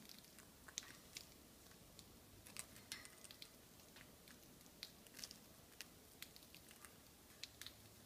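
Faint, irregular little clicks and crunches of green-cheeked conures nibbling their food with their beaks.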